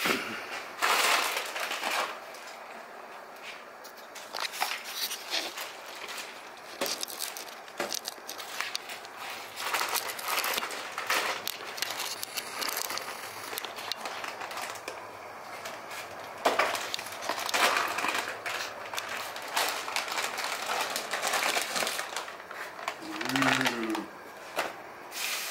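Crinkling and rustling as loose plastic wiring connectors and their packaging are handled on a plastic-tarp-covered table, with scattered clicks and clatters.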